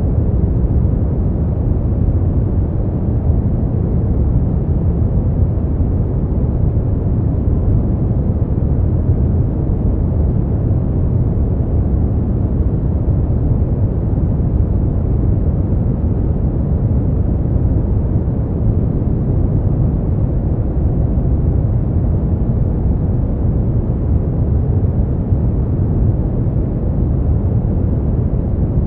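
Steady noise of a sleep and relaxation track, billed as white noise but deep and dull like brown noise: an even low rush with almost no hiss on top, unchanging in level.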